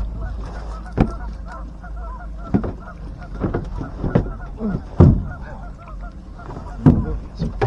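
A flock of geese honking over and over, many overlapping calls, with several loud thumps scattered through.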